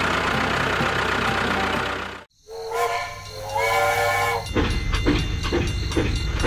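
Toy steam locomotive sounding a recorded steam-whistle effect in two blasts, then chugging: evenly spaced chuffs over the steady hum of its motor running on the plastic track. Before this, a steady noisy sound cuts off suddenly about two seconds in.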